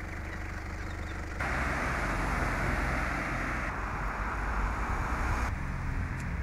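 Steady outdoor background rush, a noisy hiss over a low rumble with no clear single source, that jumps in level and tone about a second and a half in and changes abruptly twice more.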